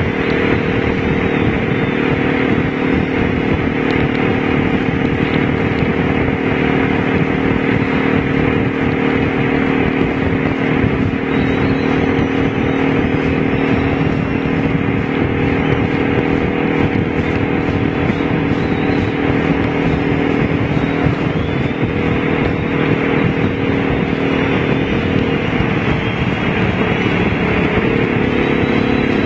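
Honda V-Twin Magna 250's 250 cc V-twin engine running steadily while riding, over a steady rush of wind and road noise. The engine pitch shifts briefly about 26 seconds in.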